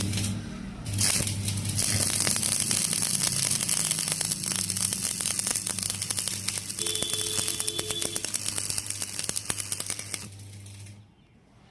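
Electric arc welding: a dense, steady crackle from the arc over a low mains hum. It fades out near the end as the arc is broken.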